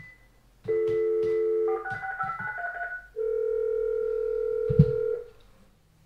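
Telephone line tones from a corded desk phone. A steady dial tone lasts about a second, then a quick run of keypad touch tones as a number is dialed, then a ringing tone sounds on the line for about two seconds.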